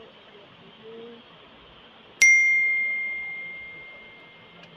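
A bell-like notification ding sound effect, the kind that goes with a subscribe-button animation: one clear strike a little over two seconds in, ringing at a single pitch and fading out over about two seconds.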